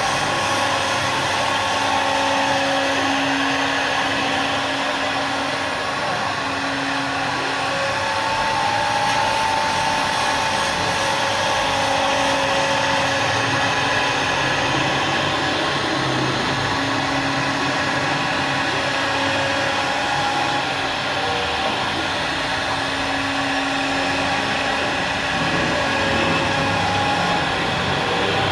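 An electric woodworking power tool running continuously, its motor giving a steady rushing noise with a whine that fades in and out.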